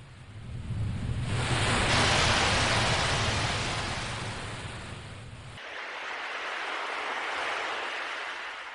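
Ocean waves surging and washing back: one loud swell peaks about two seconds in and ebbs away, then a second, lighter wash follows.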